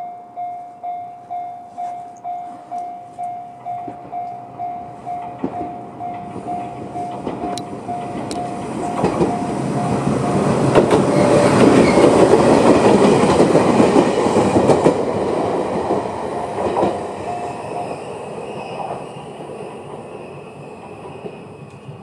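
Level-crossing alarm sounding its JR-standard electronic bell, a repeating ding about twice a second. About halfway through, a Fukushima Kotsu 1000 series electric train passes over the crossing with wheel clatter, loudest in the middle and fading away. The bell stops a few seconds before the end as the crossing clears.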